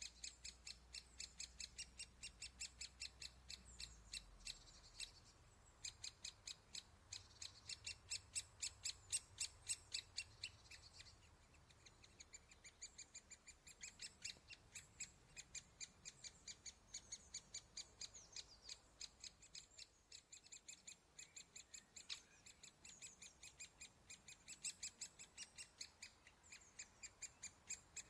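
Great spotted woodpecker nestlings begging from the nest hole: a long run of short, high calls, about three a second, pausing briefly a few times.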